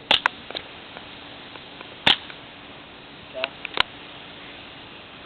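450 fps CO2 airsoft pistol firing BBs at a rubber mask: sharp, short pops, a quick pair near the start, then single shots about two seconds in and just before four seconds.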